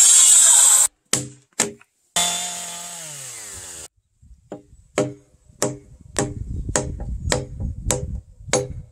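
Handheld circular saw cutting into a timber beam, stopping abruptly just under a second in; two knocks; then the saw is briefly run again and winds down with a falling pitch. After that, a mallet strikes a steel chisel into the beam eight times at an even pace, a little under two blows a second, each blow with a sharp metallic ring.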